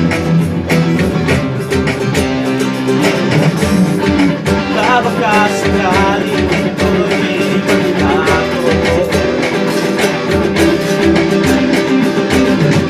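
Band playing an instrumental passage led by a strummed acoustic guitar, with a steady beat and no vocals.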